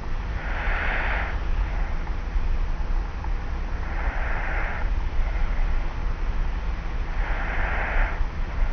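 A person asleep on their back, snoring slightly: three slow, airy breaths about three and a half seconds apart. Underneath runs the steady low hum and hiss of an old tape-recorder recording.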